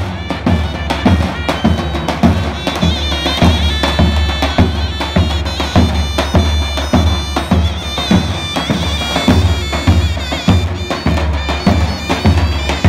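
Background music: a folk tune on a reedy wind instrument over a steady drum beat.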